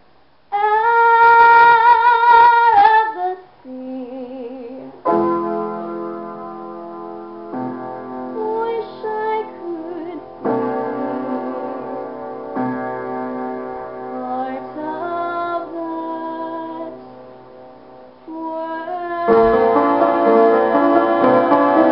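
A woman singing to her own piano accompaniment: a long held note with vibrato at the start, then piano chords under shorter sung phrases, with the piano playing louder and fuller about nineteen seconds in.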